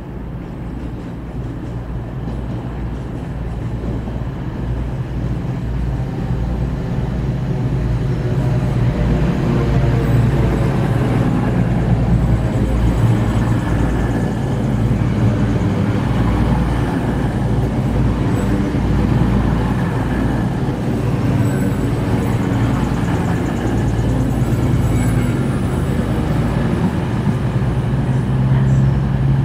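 Diesel train running at a station platform, its engine giving a steady low hum. It grows louder over the first ten seconds or so, then stays loud.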